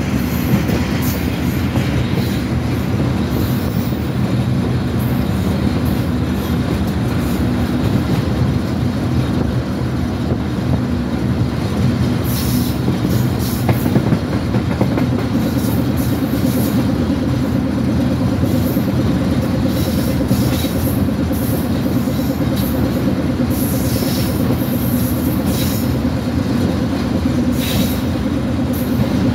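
Pakistan Railways diesel-electric locomotive running along the line at speed, heard from the cab doorway: a steady engine drone under wind and the noise of wheels rolling on the rails, with scattered clicks from the track. A higher steady note joins the engine sound about halfway through.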